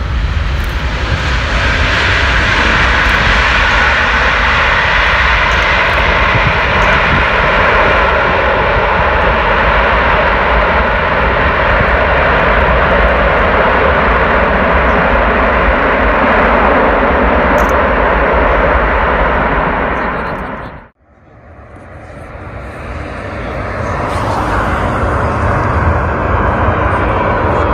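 Antonov An-225 Mriya's six Ivchenko-Progress D-18T turbofan engines running loud and steady. About three quarters of the way through the sound cuts out abruptly, then swells back up over a few seconds to the same steady engine noise.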